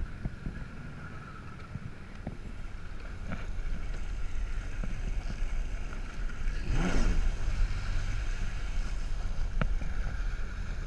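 Yamaha WaveRunner jet skis running across open water: a steady engine and jet-pump drone with wind buffeting the microphone and water rushing from the wake. There is a brief swell about seven seconds in.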